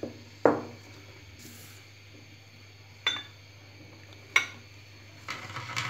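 A ceramic bowl being set down and shifted on a stone countertop: a knock about half a second in, then a few sharp, lighter clinks and a brief scrape near the end, over a steady low hum.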